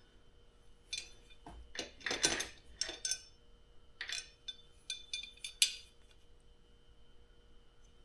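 Loose parts clinking and clattering as they are picked up and handled: a scatter of short knocks and clinks that stops about six seconds in.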